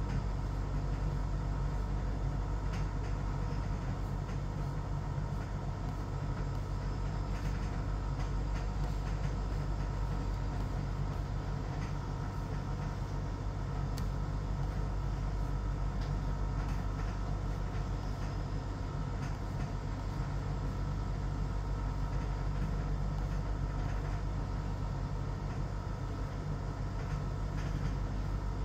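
Steady low mechanical hum and rumble with several constant tones, and a few faint clicks.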